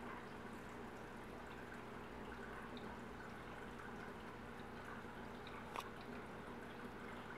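Faint aquarium water sounds, trickling and bubbling, over a steady electric hum, with scattered tiny ticks and one sharp click late on.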